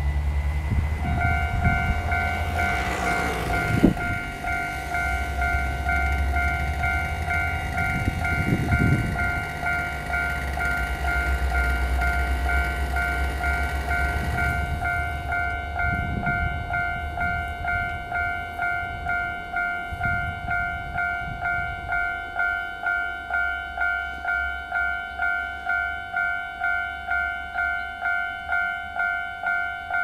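Level-crossing warning bell ringing steadily from about a second in, a repeating two-tone ding about one and a half strikes a second, signalling that a train is approaching and the barrier is down. A low rumble runs under the first half and fades about halfway through.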